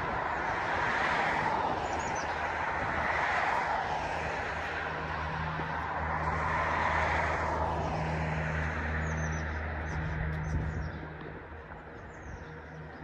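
Vehicle noise: a steady engine hum under a rushing haze that swells and ebbs several times, then dies down near the end. A few faint bird chirps.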